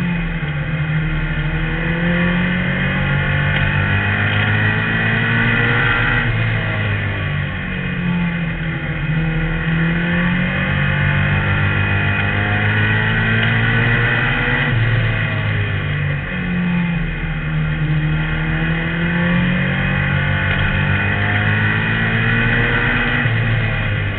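Compact-class stock race car's engine, heard from inside the car at racing speed. The pitch rises and falls several times as the car accelerates and lifts off the throttle around the short oval.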